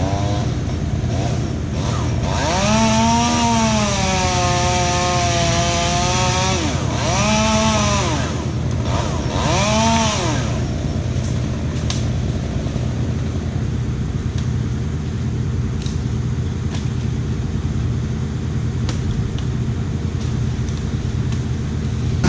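A chainsaw revving up three times, its pitch rising and falling, the first run about four seconds long and the next two short, over the steady drone of a larger engine running throughout.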